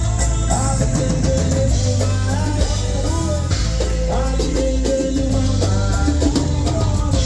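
Live band playing a rock-style number, with a voice or lead line over guitar, bass and drum kit at steady volume.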